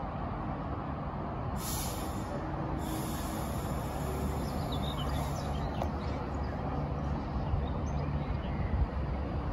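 Avanti West Coast Class 390 Pendolino electric train pulling slowly into the platform: a steady low hum and rumble that grows slightly louder as it draws near, with a few faint high squeaks a few seconds in.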